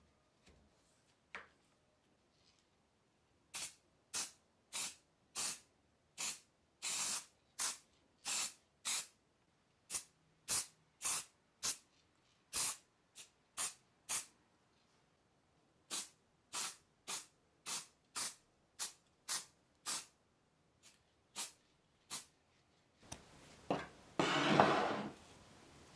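Short bursts of spraying hiss, about two a second, each lasting a fraction of a second, followed near the end by one longer, louder hiss.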